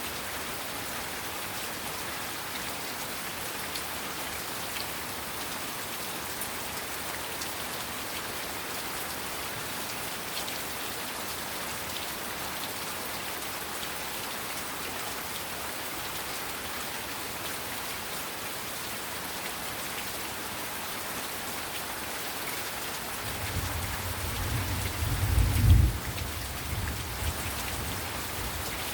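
Heavy rain falling steadily, a dense even hiss of drops. Near the end a low rumble of thunder swells, peaks briefly and fades.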